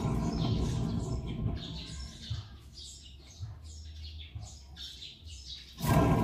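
Nissan Vanette front wheel hub and brake disc spun by hand with the caliper off, the front wheel bearing rumbling as it turns and dying away as it slows. It is spun again near the end and the rumble comes back louder.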